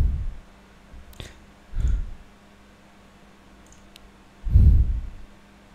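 A few sharp computer mouse clicks, with three short, dull low thumps on the microphone, the last and loudest near the end.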